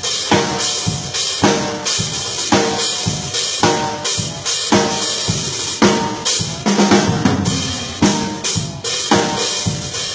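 Drum kit played in a steady groove: kick and snare hits about twice a second, with hi-hat and cymbal strokes between.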